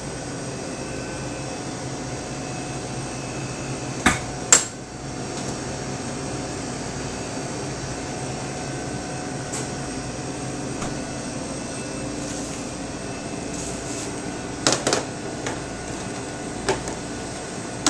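Steady hum of kitchen ventilation or refrigeration, broken by sharp knocks and clanks of kitchen equipment being handled: two about four seconds in, and several more near the end as a metal sheet pan is set on the wooden worktable.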